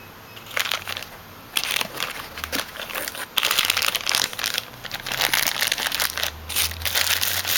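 Clear plastic bag crinkling as the red leads packed inside it are handled, in irregular crackly bursts starting about half a second in.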